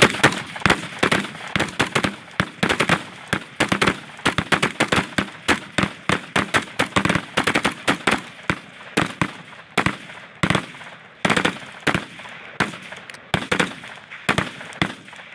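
Gunfire from several 5.56 mm light machine guns fired single shot at once: sharp, uneven reports overlapping at a few shots a second, each followed by a short echo.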